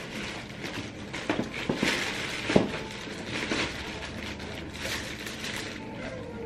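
Cardboard shipping box being opened by hand: rustling and scraping of cardboard and packing material, with scattered sharp cracks, the loudest about two and a half seconds in.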